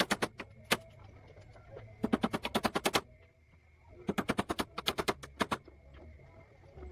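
Rapid sharp knocks in three bursts of about a second each, around ten knocks a second, from tool work on a wooden boat under construction.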